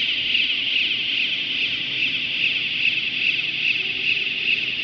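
Electric trackless transfer cart driving on its polyurethane wheels: a steady, high-pitched whirring hiss from its drive.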